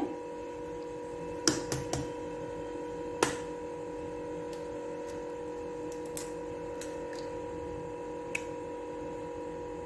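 An egg being cracked against a glass bowl: a few sharp taps between about one and a half and three seconds in, then faint clicks as the shell is pulled apart. A steady background hum runs underneath.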